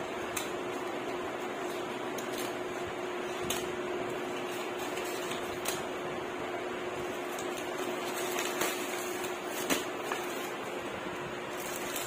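Scissors snipping a courier mailer bag open and the bag being handled, heard as a few separate sharp clicks over a steady background hum.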